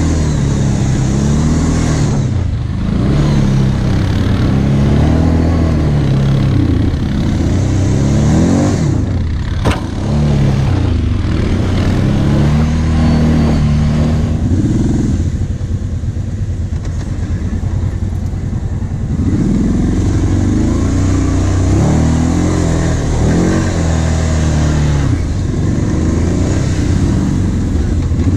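Quad-bike (ATV) engine revving up and down while riding over rough sandy ground, its pitch rising and falling every second or two, with wind and tyre noise over it. A sharp knock about ten seconds in; the engine eases to a lower, quieter run for a few seconds past the middle, then revs again.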